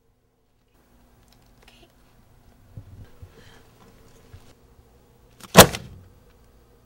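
One loud, sudden thud about five and a half seconds in: a stack of paperwork slammed down into a wire-mesh desk in-tray. Before it, faint room hum with a few small knocks and rustles.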